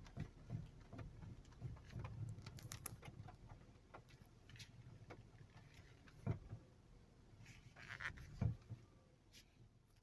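Faint, scattered knocks and clicks from a Toyota Sienna minivan's front steering and suspension as the steering wheel is turned, with two sharper knocks in the second half. The owner suspects the steering system or a ball joint.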